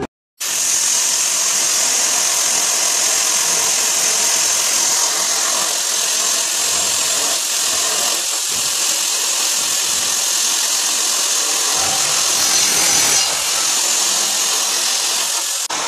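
Corded electric drill running steadily as its bit grinds a hole through a ceramic tile, a loud, high, hissing grind. It starts suddenly about half a second in and cuts off abruptly near the end.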